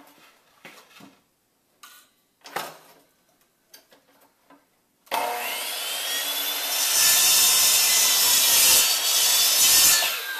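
A few light knocks of wood being handled, then about halfway a Pro-Tech miter saw starts with a sudden whine and its blade cuts down through pallet boards, louder and heavier during the cut. Near the end the cut finishes and the motor winds down.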